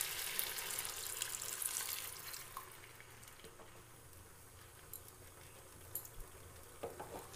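Water being poured into a hot pan of frying chicken curry, hissing and sizzling, with the sizzle dying down after two or three seconds. A few faint clicks follow near the end.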